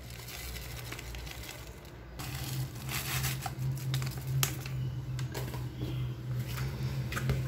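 Plastic bag of desiccated coconut flakes crinkling as it is shaken out over a bowl, followed by a silicone spatula scraping and tapping in stiff dough. A steady low hum comes in about two seconds in.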